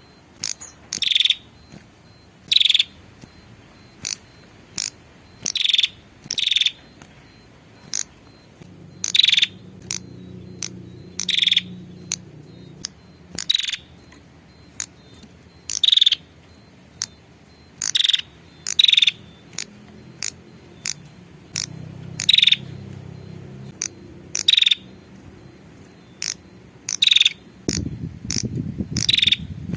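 Female prenjak (a small Indonesian warbler) repeating short, sharp high calls, one every second or two and sometimes two in quick succession, in the manner of a female calling to a male. A faint low background rumble comes and goes beneath the calls and grows louder near the end.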